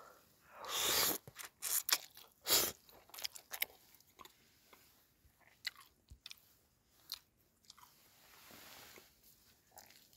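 A person eating hot instant noodles from a metal camping pot: chewing and biting, with two loud noisy bursts in the first few seconds, then scattered small clicks.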